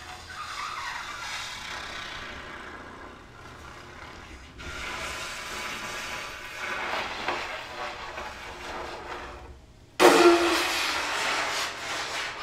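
Breathy, hissing air noise blown through trumpets whose bells are stuffed with flowers, mostly without a clear note. About ten seconds in it jumps suddenly louder, with a brief low note.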